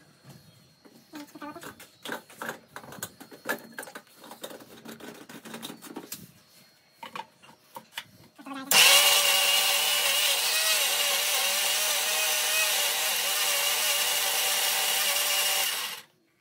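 Scattered clicks and knocks of handling, then about nine seconds in a kitchen mixer grinder switches on and runs loud and steady, blending pineapple with milk and sugar, and cuts off just before the end. In the oversized jar the fruit is not grinding properly.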